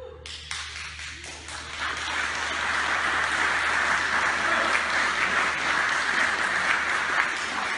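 Audience applauding: many hands clapping, swelling over the first couple of seconds, holding, then thinning out near the end.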